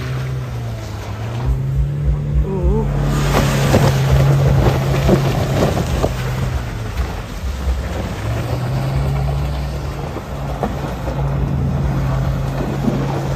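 Mahindra Thar's engine revving hard as it spins donuts, its tyres churning through loose dirt and gravel. The engine note drops and climbs again twice.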